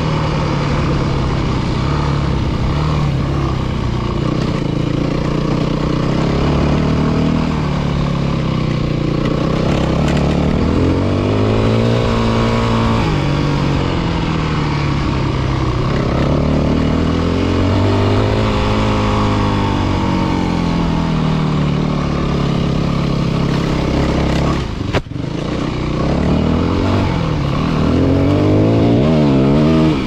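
Yamaha WR250F's 250 cc single-cylinder four-stroke engine being ridden, its pitch rising and falling over and over with the throttle and gear changes. The engine sound drops out for a moment late on, then picks up again with quick revs.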